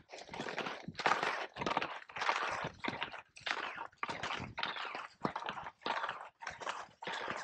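Crunching and scraping of touring skis and poles on firm, groomed snow as a skier climbs. It goes in a steady rhythm of about two strokes a second.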